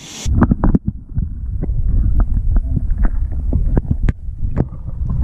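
Camera microphone submerged in lake water: a muffled low rumble with many small clicks and pops, starting suddenly a moment in.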